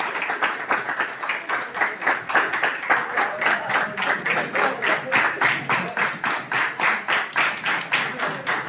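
A group of people clapping their hands together in time, a steady rhythmic beat of about four to five claps a second.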